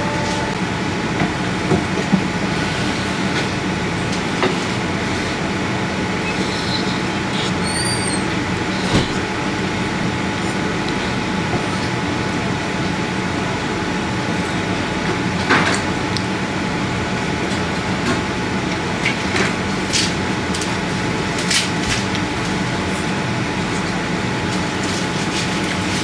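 Steady hum and hiss of a convenience store's background machinery, with a few brief clicks and taps of wooden chopsticks against a paper noodle cup during eating.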